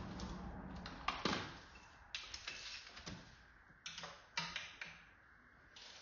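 Hand tools working on the engine's torque converter bolts: a scattering of sharp metallic clicks and knocks, several in quick succession about a second and two seconds in, and a couple more about four seconds in.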